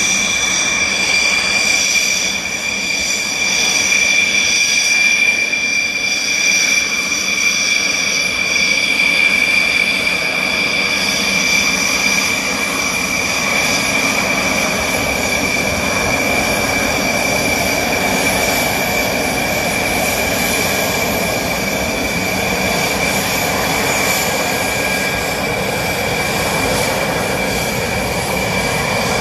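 Dassault Rafale's twin turbofan jet engines running at taxi power: a steady high-pitched whine over a continuous rushing noise.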